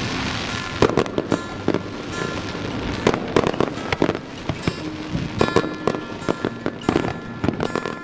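Fireworks going off in an irregular run of sharp bangs and crackles, with music playing underneath.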